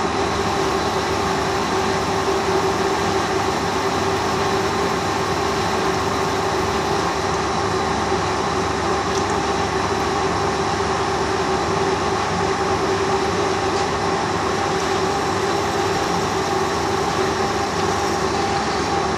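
Lathe running under power feed while a boring bar takes the last few thousandths off the bore of a model diesel engine crankcase, the finishing cut: a steady machine hum with a constant tone throughout.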